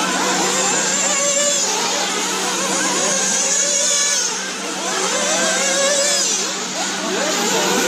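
Several nitro RC car engines racing together, their high whines rising and falling over and over as the cars accelerate and lift off around the track.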